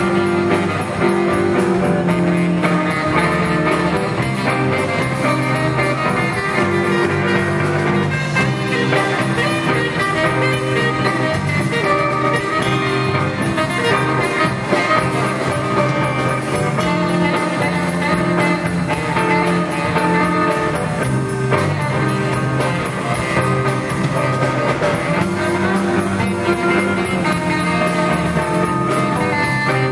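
Live band playing a blues-rock number: guitar over bass and drum kit.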